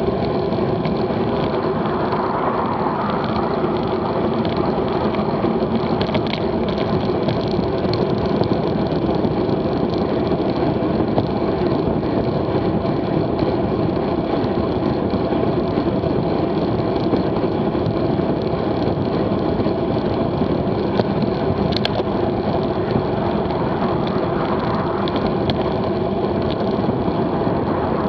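Steady wind and road noise from a road bike moving at about 20 to 25 mph: a constant rush of air over the bike-mounted camera's microphone and tyre hum on asphalt, with a few faint clicks.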